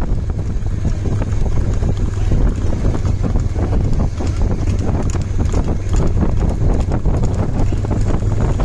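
Heavy wind noise buffeting the microphone of a camera riding on a moving vehicle, a steady low rumble.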